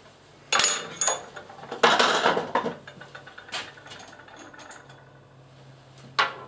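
Metal parts being handled at a milling machine while a workpiece is set up: two sharp ringing clinks about half a second and a second in, then a louder clattering rattle around two seconds, and single clicks later on. A faint steady low hum sits underneath.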